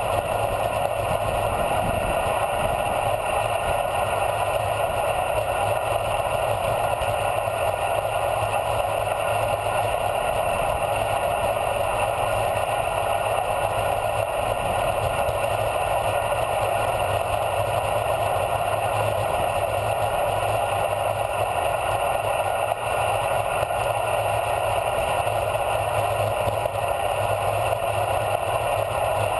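Steady wind and road noise from a bicycle rolling down a paved road, heard through a camera mounted on the handlebars: wind rushing over the microphone with tyre hum, unchanging throughout.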